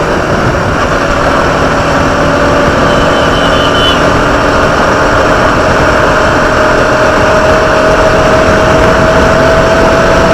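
Motorcycle being ridden at an easy pace: the engine runs steadily under a loud rushing noise of air past the bike, and the engine note rises slightly toward the end.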